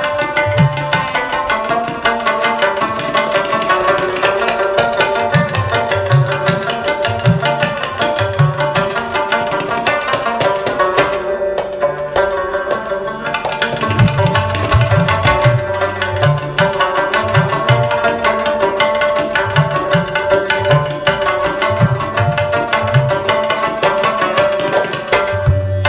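Instrumental folk music: hand-drum strokes keep a rhythm under a melody over a steady drone. The drums drop out for a couple of seconds about halfway through, then come back in.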